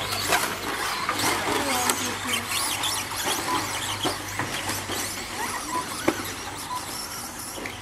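Radio-controlled short course trucks racing on a dirt track: their motors whine up and down as they accelerate, with a few sharp knocks from jumps and landings, the loudest about six seconds in. A few short beeps sound now and then.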